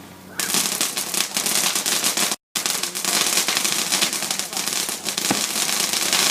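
Consumer fireworks going off with a dense, rapid crackle of small pops that starts suddenly about half a second in and keeps going. There is a brief cut in the sound a little after two seconds.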